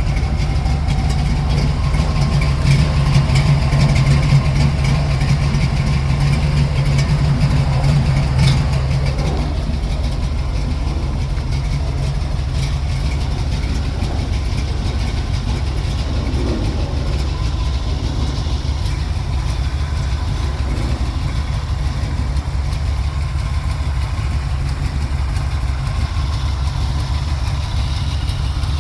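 Small-block Chevy V8 idling through 40 Series Flowmaster mufflers, a steady low exhaust rumble. It is a little louder for the first several seconds, then settles to an even idle.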